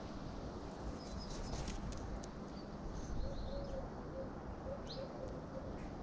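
A pigeon or dove cooing, a row of short repeated notes starting about three seconds in. There are also a few short high chirps from small birds and a quick run of sharp taps about a second in, over a steady low outdoor rumble.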